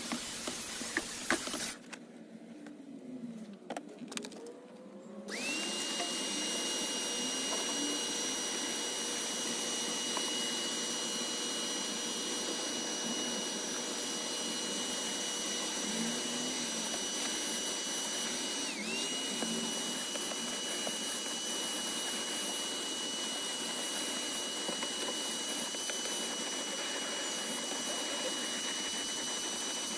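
Bissell wet vac pulling upholstery cleaner out of car carpet, running with a steady rush of air and a high whine. It cuts out about two seconds in and starts again about five seconds in, its whine rising quickly as it spins up, then dips for a moment a little past halfway and recovers.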